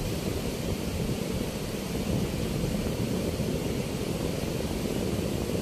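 River water rushing through the open sluice gates of a movable weir: a steady, unbroken deep rumble of turbulent outflow.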